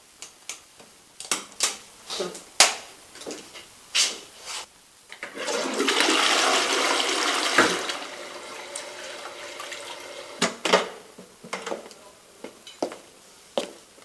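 Toilet flushing: a loud rush of water for about two and a half seconds, easing into a quieter tank refill. A series of small knocks and clicks comes before it.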